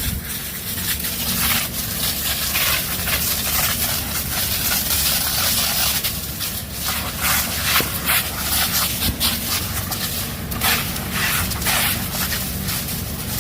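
A brush and structure fire crackling and popping: irregular sharp snaps throughout, over a steady low rumble.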